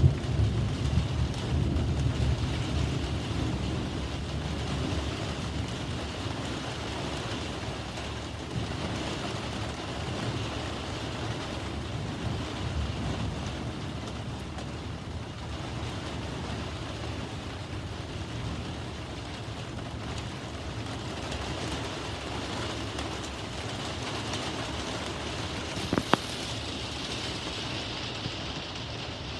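Steady rain falling in a thunderstorm, with a low rumble of thunder dying away over the first few seconds. A single sharp click near the end.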